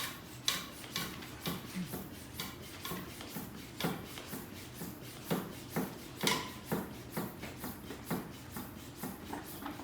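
Irregular clicks, knocks and rubbing, several a second, as a pump head and hose are handled and worked onto an air-filled scooter tyre's valve.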